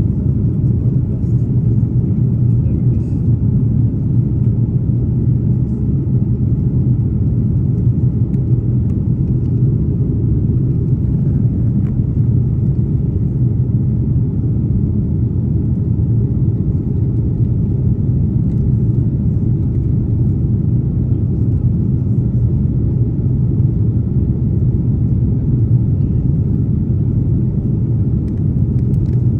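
Steady low rumble of an Airbus A330neo airliner heard from inside the economy cabin, unchanging throughout.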